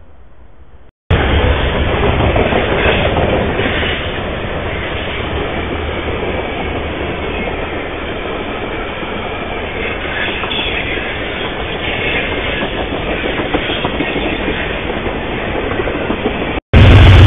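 Freight train of tank cars passing close by, its wheels and cars making a loud, steady rattling noise on the rails, picked up by a trail camera's microphone. It starts suddenly about a second in, after faint hiss, and is loudest in the first few seconds.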